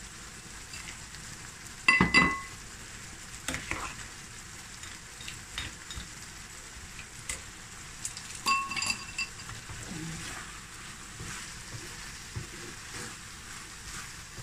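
Chicken keema frying in a pan with a steady sizzle, with the scrape and knock of a wooden spatula stirring it. Twice, about two seconds in and again about eight and a half seconds in, metal strikes a pot with a ringing clink, the loudest sounds here.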